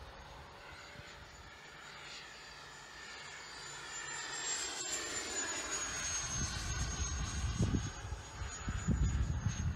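Electric ducted fan of a Freewing MiG-21 Lancer RC jet making a high, steady whine as it flies by. It grows louder, and its pitch rises slightly and then drops about halfway through as the jet passes. Low gusts of wind rumble on the microphone in the second half.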